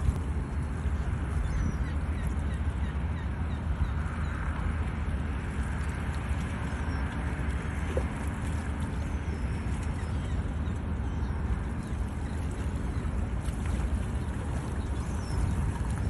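Steady low rumble and rushing noise of a car ride heard from inside the cabin: road and engine noise with no break.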